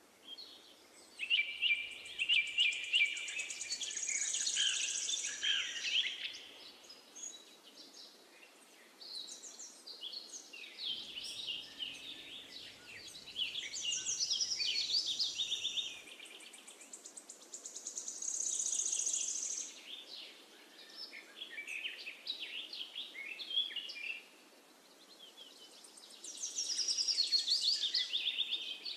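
Birds chirping and singing, with trilling phrases that come and go every few seconds over a faint steady background hiss.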